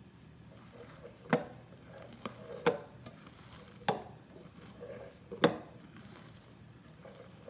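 A spatula folding thick meringue batter in a stainless steel bowl: soft scraping and squishing, with a handful of sharp knocks as it hits the metal bowl, roughly every second and a half. This is the almond flour and powdered sugar being folded into the whipped egg whites for dacquoise batter.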